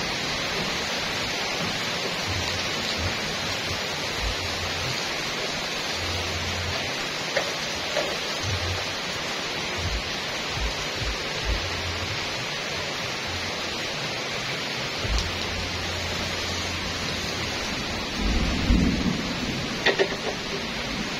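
Steady rain falling on pavement and leaves, an even hiss throughout. Under it, low rumbles come and go, with a louder rumble and a few sharp knocks near the end.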